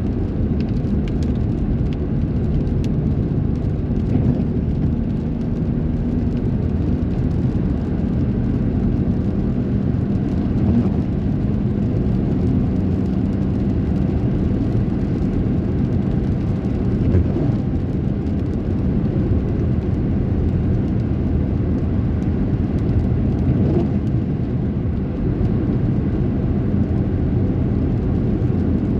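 A car driving through heavy rain: a steady low rumble of engine and wet road noise, with the rain's hiss over it.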